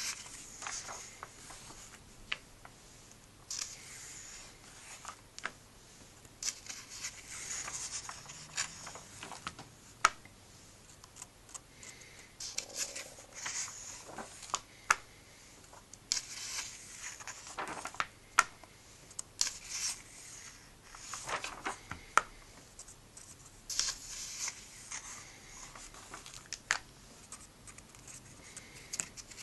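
Pages of a comic book being turned by hand: repeated papery swishes and rustles every few seconds, with crisp sharp snaps as pages flip over.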